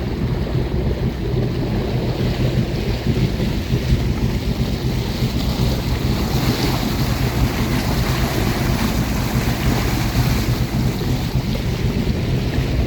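Fishing boat's engine running steadily as a low drone, with wind blowing on the microphone and water noise over it.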